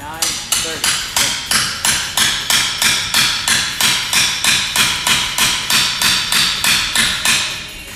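Loud, evenly spaced hammer-like strikes, about three a second, that fade away near the end.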